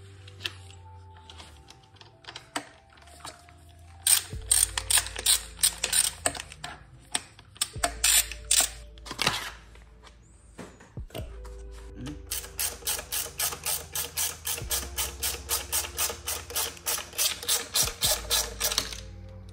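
Hand ratchet driver with a hex bit clicking as it backs out screws: irregular bursts of clicks from about four seconds in, then from about twelve seconds a steady run of roughly six clicks a second. Background music with sustained tones underneath.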